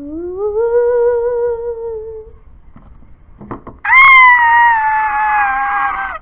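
Two long, drawn-out wails. The first rises and is held with a wavering pitch for about two seconds. The second is higher and louder; it starts about four seconds in, sags slowly in pitch and cuts off suddenly.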